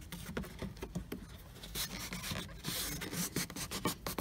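Hands pushing a wire and the corrugated rubber wiring boot back into a car's door jamb: irregular rubbing and scratching with light clicks and crackles, and a longer stretch of rustling about halfway through.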